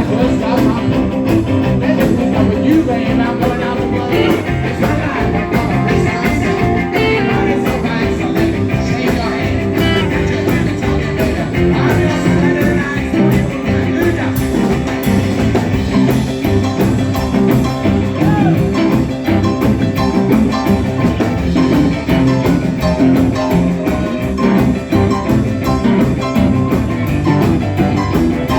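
Live rock and roll band playing a boogie-woogie rock number with guitar, piano, bass and drums, loud with a steady driving beat.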